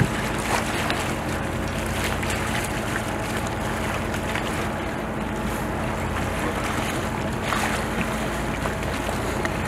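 A boat's engine running steadily with a constant low hum, along with wind on the microphone and water around the hull.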